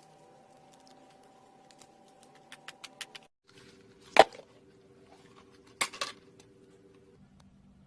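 Slime being squeezed and poked by hand: a quick run of small sticky clicks, then one sharp loud pop about four seconds in and a short crackly squish a couple of seconds later.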